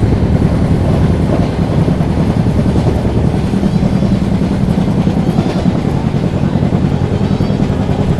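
Passenger express train running at speed, heard from inside one of its coaches: a steady, loud rumble and rattle of wheels on rail.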